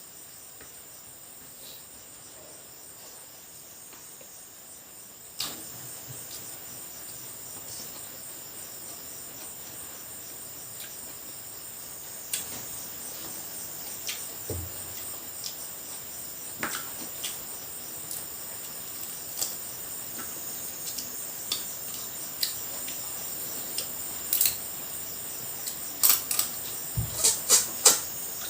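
Crickets chirping in a steady high trill, with scattered sharp clicks and clinks that come more often and louder near the end.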